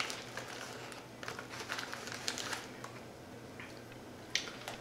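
Crunchy ring-shaped crisps being bitten and chewed close to the microphone, a run of short irregular crackly crunches.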